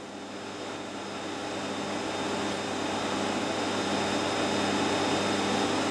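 Cinema projection booth noise: the projectors and their ventilation running with a steady hum and whir, with a few held tones. It swells up over the first couple of seconds, then holds steady.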